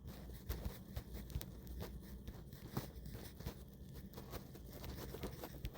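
Faint, scattered small clicks and handling noises, irregular and spaced a fraction of a second to a second apart, over a low steady hum.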